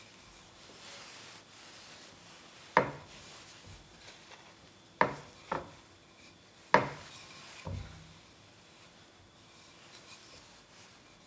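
Rolling pin rolling potato scone dough out on a floured wooden board: a soft, quiet rubbing, broken by five sharp knocks of the pin against the board in the middle stretch.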